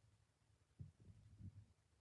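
A person snoring faintly: a low, pulsing rumble that swells just under a second in and fades about half a second later.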